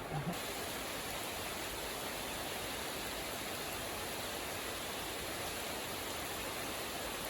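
Heavy rain falling, a steady even hiss that grows fuller and brighter just after the start.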